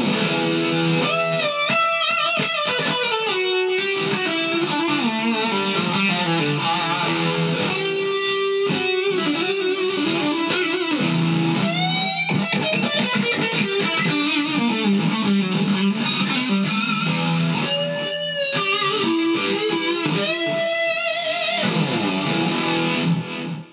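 Electric guitar played through a Vox Valvetronix AD50VT-XL modelling amp on its Fluid setting, with a delay and chorus effect. A lead line of sustained notes, with a few upward string bends around the middle and near the end.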